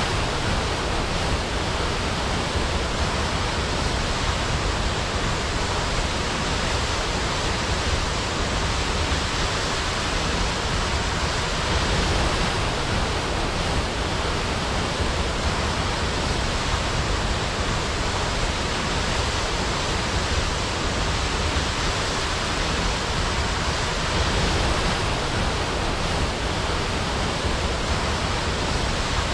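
Waterfall pouring in a steady, unbroken rush of water noise.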